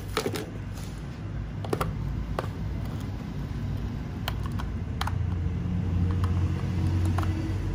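A low, steady rumble that swells for a couple of seconds in the second half, with scattered light clicks and taps.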